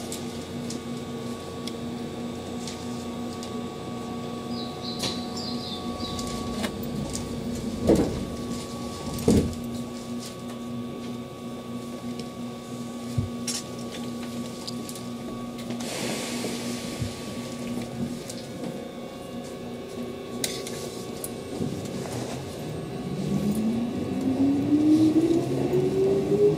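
Keihan 8000-series electric train standing with a steady electrical hum, with two sharp thumps a second and a half apart. Near the end its traction motors start a rising whine as the train accelerates away.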